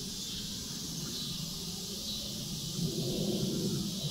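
Steady, high-pitched chorus of crickets buzzing from the surrounding woods, with an irregular low rumble on the microphone coming in about halfway.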